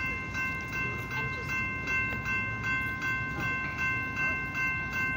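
Railroad grade-crossing warning bell ringing steadily, about three strokes a second, signalling an approaching Metra commuter train, with a low rumble underneath.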